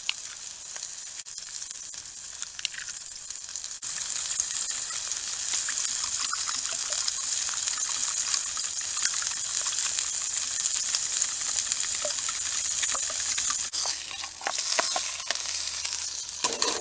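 Sausages sizzling in a pan over a campfire: a steady hiss that grows louder about four seconds in and eases near the end, with scattered faint clicks.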